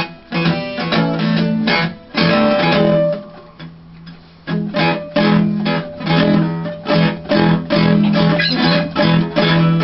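Acoustic guitar strummed in a steady rhythm, the opening chords of a song. The strumming drops away briefly about three seconds in, then picks up again.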